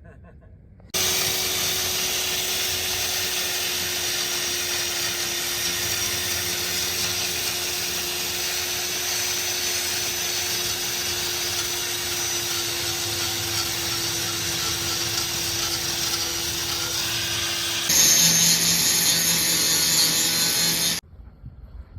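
A handheld power tool running continuously under load, with a steady hum under a harsh rushing noise. Near the end the sound turns louder and harsher for a few seconds, then cuts off suddenly.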